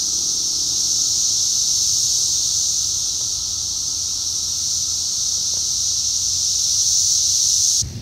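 Chorus of Brood X periodical cicadas: a steady, high-pitched buzzing drone from many insects at once, cutting off suddenly near the end.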